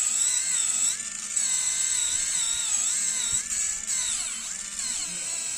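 Electric callus remover's motor-driven coarse roller whining with a wavering pitch as it sands dead skin off a heel.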